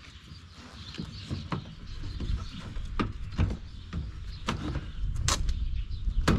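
Scattered sharp clicks and knocks of a black plastic mud flap and its fasteners being worked off a pickup's wheel well by hand.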